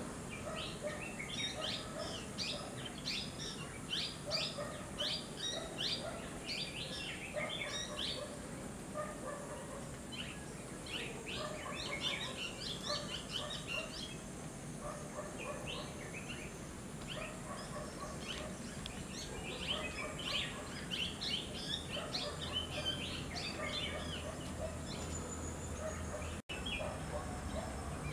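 Many birds calling at once: a dense, continuous run of short, high chirps and calls, with lower calls underneath. The sound cuts out for an instant shortly before the end.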